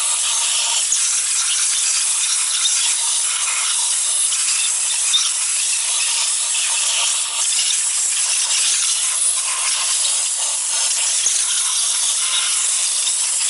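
Compressed-air blow gun hissing steadily and continuously, so loud, as it blows blasting sand out of a cylinder head.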